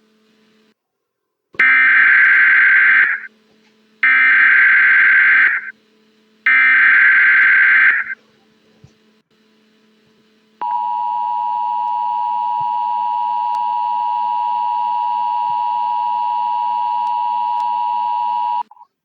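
Emergency Alert System signal: three short bursts of SAME header data, each a harsh warbling digital screech about a second and a half long, then the EAS attention signal, a steady two-tone alarm held for about eight seconds before it cuts off.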